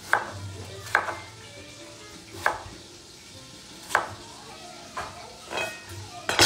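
Chef's knife chopping an onion on a wooden cutting board: about seven separate knife strikes against the board, spaced irregularly about a second apart.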